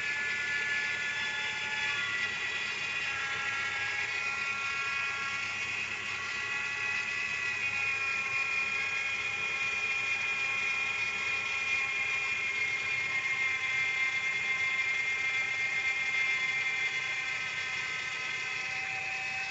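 2012 Nissan Sentra engine idling with the accessory belt removed, giving off a steady, strange high-pitched whine from the crankshaft pulley area, made of several tones that drift slightly in pitch. With the belt off the noise is still there, so the belt-driven accessories are ruled out as its source.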